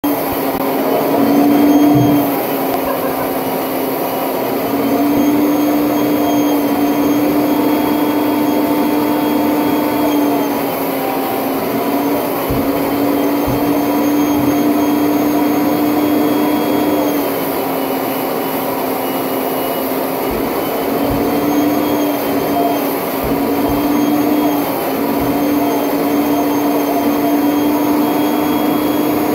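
Vacuum cleaner running steadily while its brush nozzle is worked over a dog's coat, the motor's pitch stepping slightly up and down every few seconds.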